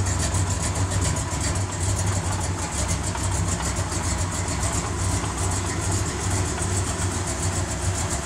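Chevrolet 454 big-block V8 with a Holley four-barrel carburetor running at low speed, near idle, with a steady, even exhaust pulse as the Corvette rolls past and turns.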